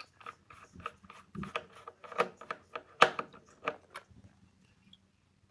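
Hand screwdriver driving a small retaining screw into a wooden bass drum shell, a quick run of irregular clicks and ticks from the screw and tool that stops about four seconds in.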